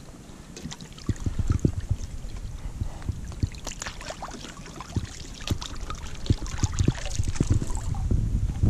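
Water splashing and sloshing with irregular knocks and crunches, over a low wind rumble on the microphone that grows louder near the end.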